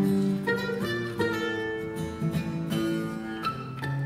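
Acoustic guitar and mandolin playing a slow bluegrass gospel tune, the melody moving in held notes that change about every half second to second and a half.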